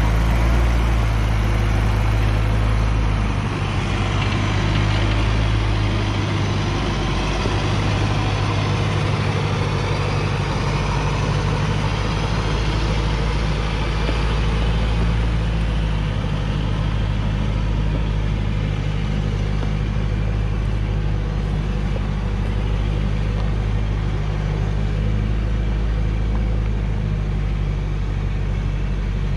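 Loaded Hoa Mai log truck's diesel engine running steadily at low revs as the truck crawls forward, a steady low hum.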